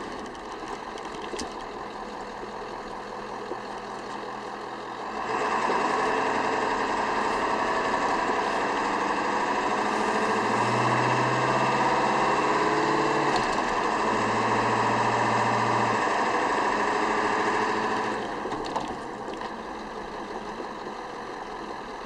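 The 7.3-litre Powerstroke turbo-diesel V8 of a 1997 Ford F-250 pickup, heard from inside the cab while driving. It gets much louder about five seconds in as the truck pulls away and accelerates, then drops back near the end.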